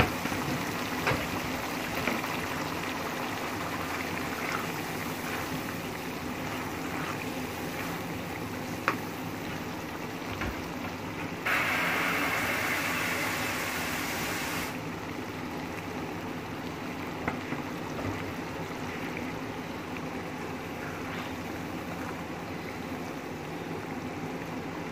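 Mash and chana dal simmering in a pan of masala, a steady bubbling hiss, with a spatula stirring it and clicking against the pan now and then. About halfway through, the hiss turns louder for some three seconds and then drops back abruptly.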